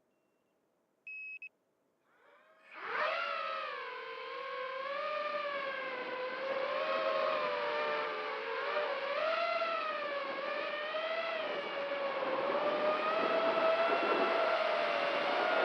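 A short electronic beep about a second in, then the Walkera F210 racing quadcopter's brushless motors and propellers start up about two seconds in and run as a high whine with several tones, the pitch wavering up and down as the throttle changes.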